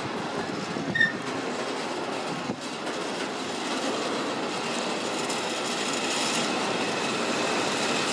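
Freight train of covered steel-coil wagons rolling past: a steady rumble and rattle of wagon wheels on the rails, with a short high squeal about a second in.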